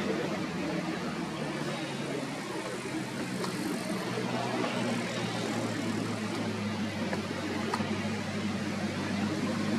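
An engine idling steadily, a low even hum with a few faint clicks over it.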